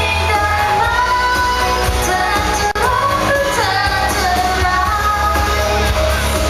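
A woman singing a pop song live into a handheld microphone over amplified backing music with a heavy, steady bass. There is one brief dropout with a click about two and a half seconds in.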